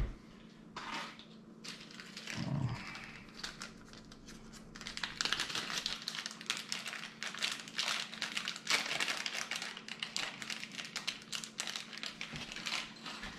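Off-camera rummaging while someone searches for a tool: rustling, crinkling and small clattering of objects being handled. It is sparse at first and becomes busy and continuous from about five seconds in.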